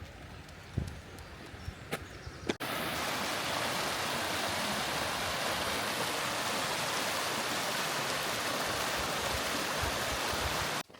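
A steady, even rushing noise that starts abruptly about two and a half seconds in and stops just as abruptly near the end. Before it come a few light knocks and rustles.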